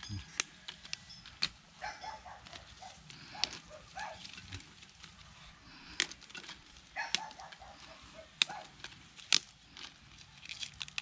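Kaffir lime leaves snapped and torn off their stems by hand: a series of sharp, crisp snaps at irregular intervals. Chickens cluck in short runs in the background, several times.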